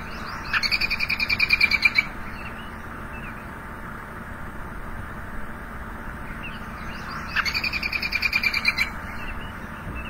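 Recording of an American robin's laughing alarm call: two long runs of quick, repeated notes, each about a second and a half and growing louder, the second about seven seconds in. It is the drawn-out call robins use to show aggression towards other robins or to alert others to what is going on around them.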